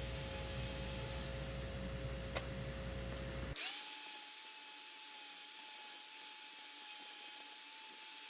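Small electric power tool motor running steadily with a constant whine. About three and a half seconds in, the sound changes abruptly to a higher-pitched steady whine.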